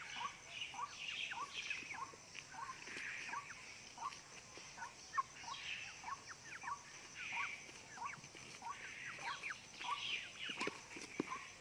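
Poultry calling: a steady run of short rising peeps, about two a second, with higher chirps scattered over them and a couple of sharp clicks near the end.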